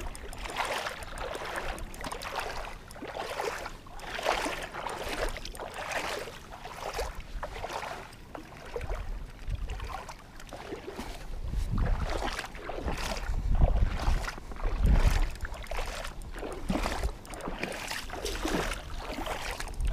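Shallow water splashing and sloshing in irregular bursts as a foul-hooked dusky flathead thrashes at the surface close by. A deeper rumble of wind on the microphone swells about midway.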